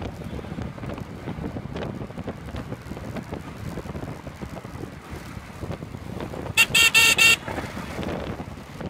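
Road traffic running close by, with a steady low rumble. About two-thirds of the way through, a vehicle horn sounds several quick toots in a row.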